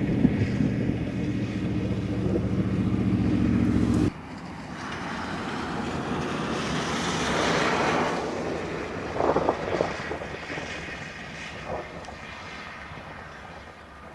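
A steady motor-vehicle engine hum with several pitched lines, cut off abruptly about four seconds in. After it comes a swell of road or wind noise that rises and fades, with a few short knocks.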